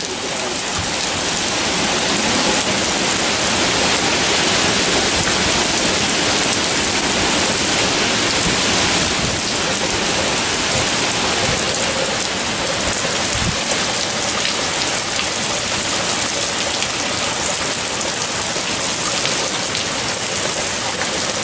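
Heavy, steady rain from a tropical storm pouring onto pavement and lawn, driven by strong wind.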